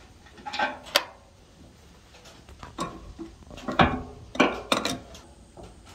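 An open-end wrench clinking and knocking against the metal fittings and wooden frame of a grist mill while lag screws are loosened and taken out: a handful of short, sharp clinks spread out, the loudest in the middle.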